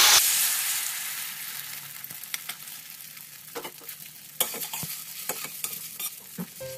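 Beaten eggs poured into hot oil with fried garlic in a wok: a loud sizzle right at the start that dies down to a steady fizz, with a metal spatula scraping and clicking against the wok now and then.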